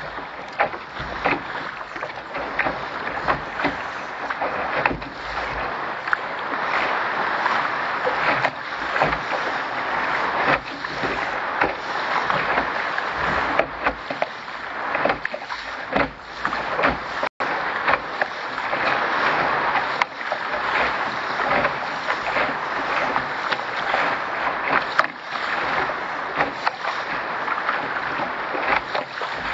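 Water rushing and splashing along the hull of a Contender dinghy sailing hard through chop, with frequent irregular slaps of waves against the hull. The sound cuts out for an instant about 17 seconds in.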